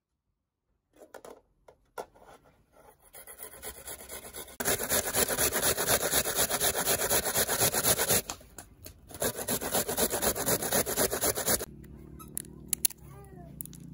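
Food being grated by hand on a stainless steel box grater: quick repeated scraping strokes in two long runs with a short pause between. The grating stops a couple of seconds before the end.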